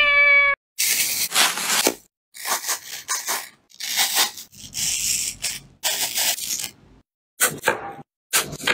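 A short cat meow at the very start, then a kitchen knife cutting through a crisp apple on a wooden cutting board: a series of crunchy cutting strokes, each about a second long, with brief pauses between them.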